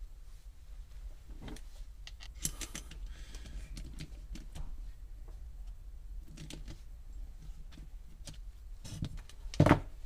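Scattered small clicks, taps and rattles of small parts being handled, with one louder knock near the end, over a low steady hum.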